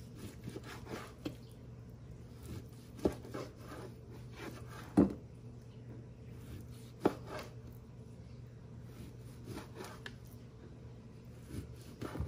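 Chef's knife slicing raw sirloin steak into thin strips on a cutting board: soft drawing strokes through the meat, with a few sharp knocks of the blade on the board, the loudest about five seconds in.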